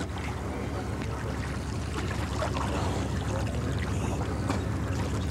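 Water sloshing and splashing as a scuba diver moves about in shallow river water, over a steady low hum.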